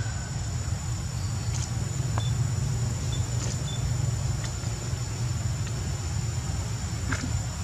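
Steady low outdoor rumble with a constant high-pitched whine above it and a few faint ticks.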